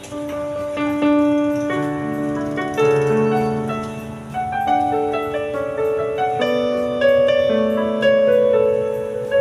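Yamaha PSR-E363 portable keyboard played with both hands: a slow piece of chords under a melody, with new notes struck every half second to second and held.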